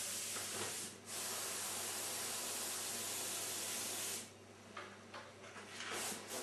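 Airbrush spraying paint: a steady hiss of air and paint, broken briefly about a second in, that stops a little after four seconds.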